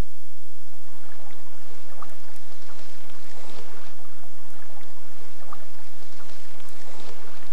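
Steady rush of a flowing river with a few faint small splashes or ticks, over a constant low hum.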